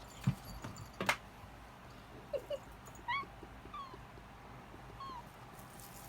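Domestic cat giving about five short meows, each rising and falling in pitch, after two sharp knocks in the first second or so.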